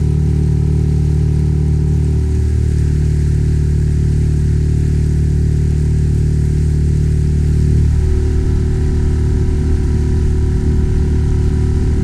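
Outboard motor of a small F-Rib 275 inflatable boat running steadily under way; its note shifts slightly about eight seconds in.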